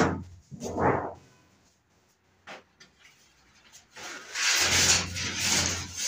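Galvanized sheet-metal tray and wire bird cage being handled. There is a short scraping slide at the start and a faint click in the quiet middle, then a longer scraping rattle of metal over the last second and a half.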